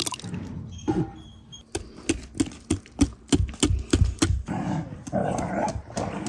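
Wire whisk beating cake batter in a glass bowl, its wires tapping the glass about three times a second. A dog's voice is heard in the background partway through.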